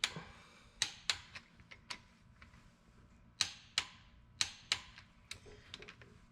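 Click-type torque wrench clicking sharply as bolts reach their set torque, about a dozen clicks, several in quick pairs (the 'double click' given to each bolt).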